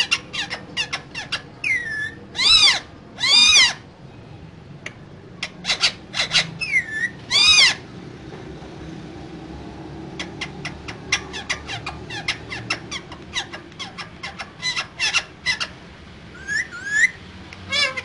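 Caged Alexandrine and Indian ringneck parakeets calling: runs of quick clicking chatter broken by several loud, arching screeches, the loudest about two and a half, three and a half and seven and a half seconds in. Shorter chirps follow near the end.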